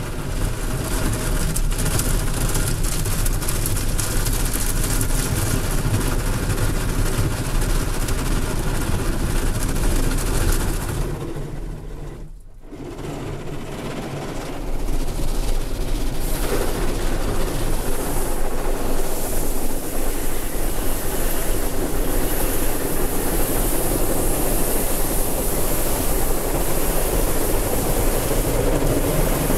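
Automatic car wash machine heard from inside the car's cabin: water spray and machinery running against the body and windows in a steady loud wash. It eases off briefly about twelve seconds in, then comes back louder and hissier.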